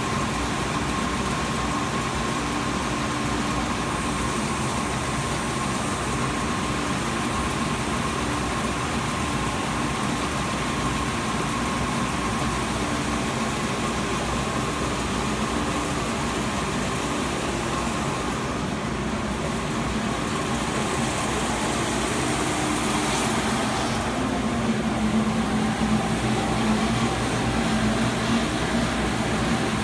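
DMC Technosand 53-inch wide belt sander running, a steady mechanical hum with a faint whine; the lower tone changes and grows a little louder about three-quarters of the way through.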